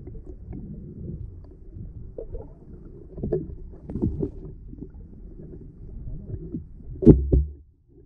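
Muffled underwater sound from a camera submerged beside a boat hull: a low rumble of moving water with several dull knocks. The loudest knock comes about seven seconds in and is followed by a brief drop out of sound.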